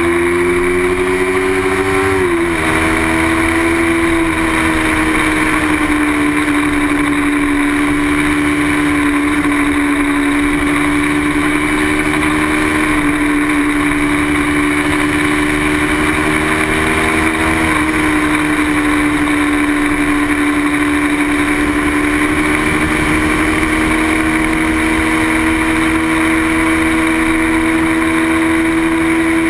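Small-displacement racing motorcycle engine held at high revs, with a continuous rush of wind noise. The pitch drops sharply about two seconds in, as at a gear change, then stays nearly level with a small step later on.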